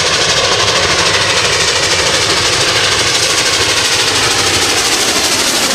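Two steam locomotives pulling a passenger train, their exhaust chuffing in a fast, even rhythm over a steady rush of noise.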